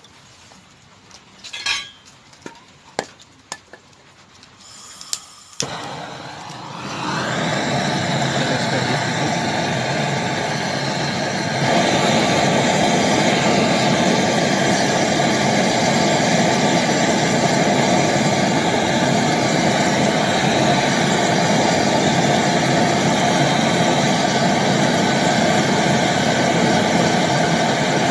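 A few light clinks and taps, then a gas brazing torch's flame starts hissing about six seconds in, getting louder in two steps and then holding steady as it heats a copper refrigerant-line joint at the filter drier for brazing.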